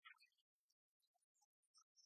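Near silence, with a few faint ticks in the first half second.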